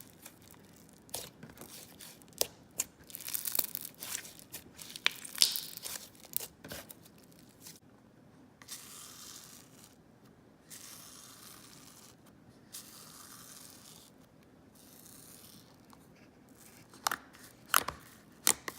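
Slime being played with by hand: a run of sharp crackling pops in the first several seconds, then a few stretches of soft tearing noise, and three loud pops near the end.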